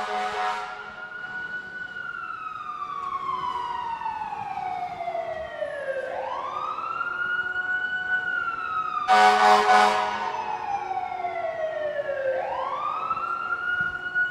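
Fire truck siren wailing, rising quickly and falling slowly, in two cycles of about six seconds each. A loud horn blast cuts in about nine seconds in and lasts a second and a half.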